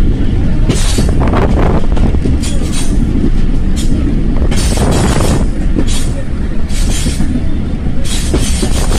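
Loud, steady low rumble of a moving vehicle heard from on board, with hissy rattles recurring about every second.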